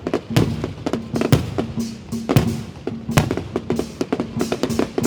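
Fireworks going off: a heavy bang about once a second among quicker, smaller cracks and pops, with music playing underneath.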